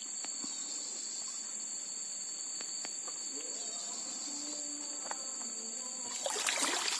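Insects chirring in a steady, high-pitched drone, with a brief rustling noise near the end.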